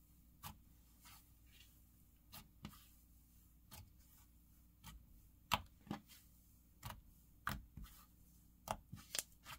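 Slightly wet fluffy cloud slime being pressed, poked and bunched up by hand, giving faint, irregular little pops and crackles: the slime's sizzles.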